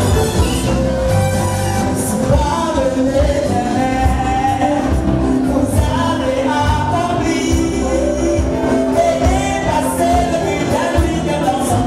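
Live gospel praise song with lead singing over a full band with drums and bass, at a steady beat.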